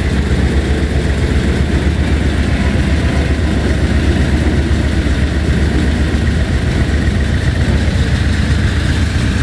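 1980 Mercedes 450SL's fuel-injected V8 idling steadily with an uneven, rough beat. It is the rough idle that the owner traces to faulty control pressure from the warm-up regulator.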